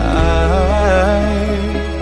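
Pop ballad: a singer holds one long, wavering sung note over a steady low bass.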